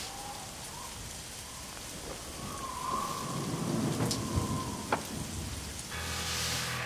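Steady rain with a low rumble of thunder swelling in the middle, and two sharp clicks. Near the end a sustained musical chord comes in.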